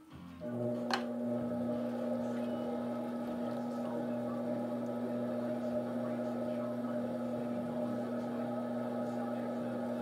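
Electric pottery wheel running with a steady motor hum, while hands shape a wet clay vase on the spinning wheel head. The hum starts about half a second in, and a short falling squeak comes about a second in.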